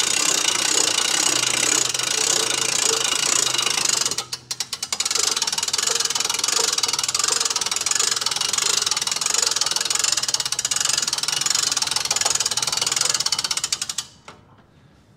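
Genie material lift's hand-cranked winch raising its forks, the mechanism clicking fast and steadily. The cranking breaks off briefly about four seconds in, then runs on and stops near the end.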